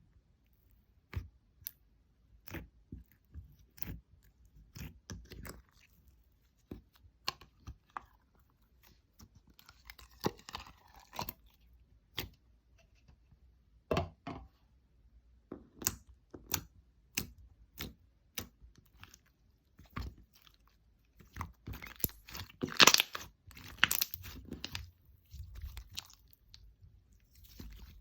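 Slime being squeezed and pressed by hand, a batch that came out badly, making sharp sticky clicks and pops at irregular intervals. A louder, denser run of crackling comes about three-quarters of the way through.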